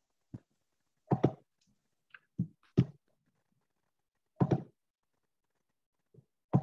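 Short clicks and thunks of a computer mouse and keyboard being worked, picked up by the computer's microphone: about seven irregular taps, some in quick pairs.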